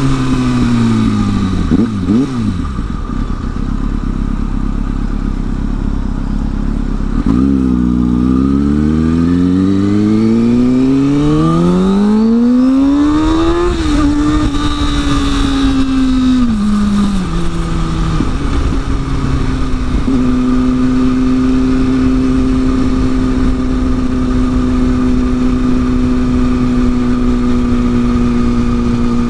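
Sport motorcycle's engine heard from the rider's seat: slowing at first, then pulling hard with a long rising pitch through the middle, easing back in steps, and settling into a steady cruise for the last third. Wind and road rush run underneath.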